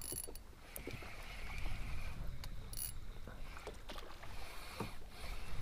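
Water sloshing against the kayak hull over a low rumble of wind on the microphone, with a few short clicks and knocks of handling.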